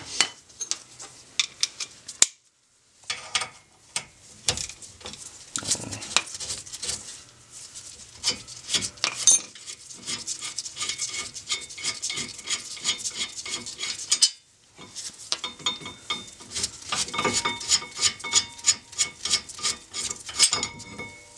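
Metal clinking, ticking and scraping of tools and steel bolts as the front brake caliper bracket bolts are loosened and backed out and the caliper bracket is worked off the hub, broken twice by a brief silence.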